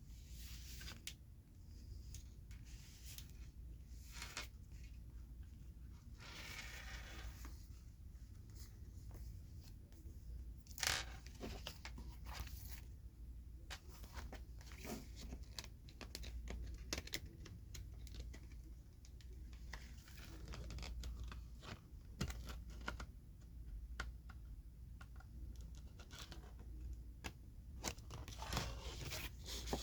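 Close-up handling of oversized Pokémon cards and their packaging: irregular taps, scratches and crinkly, tearing-like rustles, with one louder tap about eleven seconds in.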